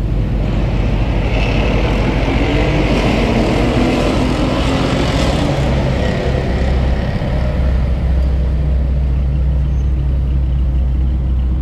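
A car engine under hard throttle that swells and fades over the first six seconds or so, then a steady low rumble.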